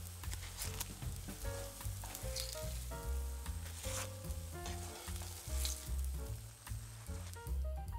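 Oil sizzling in a frying pan as zucchini fritters fry, with a few sharp crackles or spatula scrapes; the sizzle dies away near the end, leaving background music.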